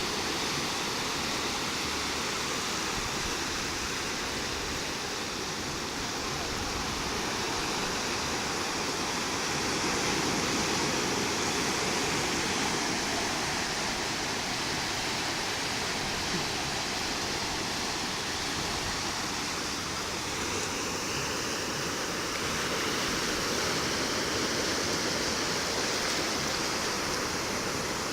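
Ocean surf rushing steadily on the beach, swelling a little twice.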